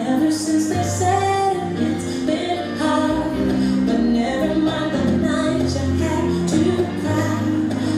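Pop song with singing over a steady beat and bass line.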